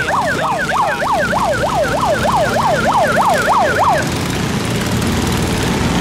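An electronic siren yelping in fast rising-and-falling sweeps, about three a second, that stop about four seconds in. Under it runs the steady low sound of boat engines.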